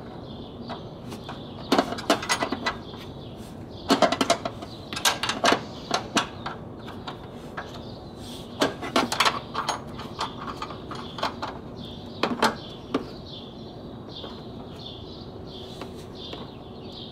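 Open-end spanner clinking against the top-mount nuts of a car's front strut as they are tightened: irregular clusters of sharp metallic clicks and taps, coming every second or two.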